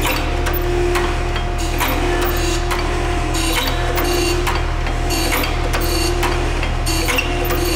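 Okamoto 16x32 hydraulic surface grinder running, its undressed wheel grinding a steel block: a steady motor and wheel hum with a quick, even rhythmic scratching of wheel on steel over it.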